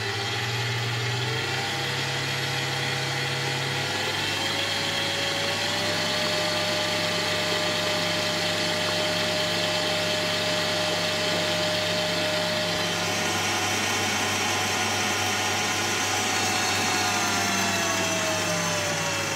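Electric stand mixer running at speed with its balloon whisk beating heated egg-white syrup into meringue in a glass bowl: a steady motor whine that rises in pitch in the first few seconds, holds, then drops near the end.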